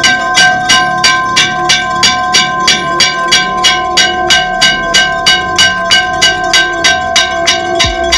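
A metal temple bell struck over and over in a fast, even rhythm, about three to four strikes a second, each strike ringing on into the next.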